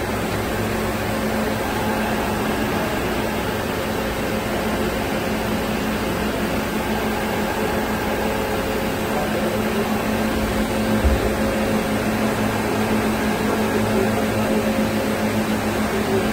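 Steady hum of a powered-up Doosan DBC250II CNC horizontal boring machine, a few steady tones over a hiss, with one low thump about eleven seconds in.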